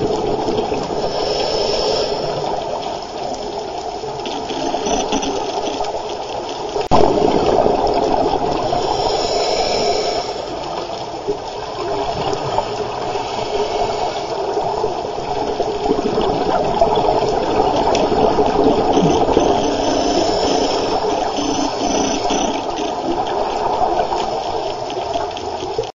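Underwater rushing and gurgling, heard through a diving camera's housing. Scuba exhalation bubbles hiss up again and again, a few times over, and there is a single sharp knock about seven seconds in.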